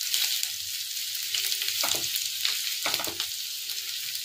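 Chopped garlic and ginger sizzling in hot oil in a nonstick kadhai on high flame, stirred with a spatula. A few short scrapes of the spatula come about two and three seconds in.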